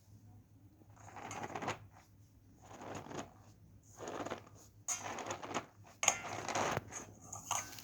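Cornstarch being squeezed, making squeaky crunches: about six separate squeezes, each lasting under a second.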